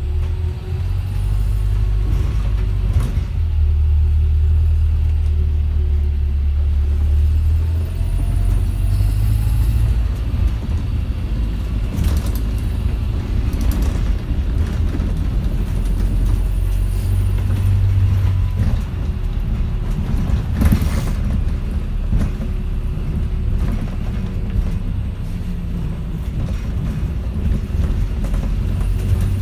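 Volvo B5LH hybrid double-decker bus heard from inside on the upper deck while running: a steady low drivetrain rumble that swells and eases several times, with a thin steady whine above it and a few brief rattles and knocks from the body.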